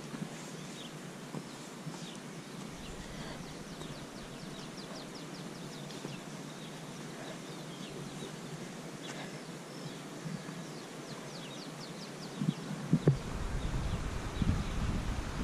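Birds chirping and calling, with runs of quick repeated notes. Near the end, low rumbling and thumping of wind on the microphone takes over as the loudest sound.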